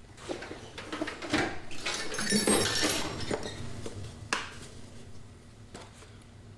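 Small metal pieces clinking and rattling with rustling as loose driver bits are rummaged through in search of a T20 Torx bit, with a sharper click a little past the middle.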